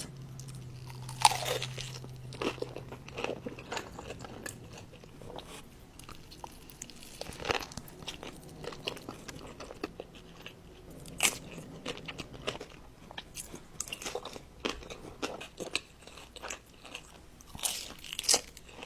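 Close-miked biting and chewing of crispy fried hot chicken, a run of crackly crunches with the loudest bites about a second in, around eleven seconds in, and near the end.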